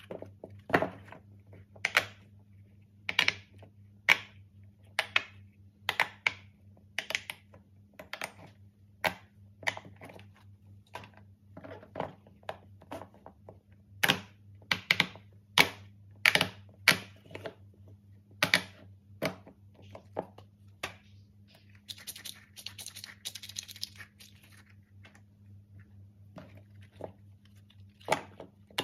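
Silicone pop-it fidget toys being handled and their bubbles pressed: a run of sharp, irregular pops and taps, about one or two a second. A soft rustle of silicone sliding comes about three quarters of the way through.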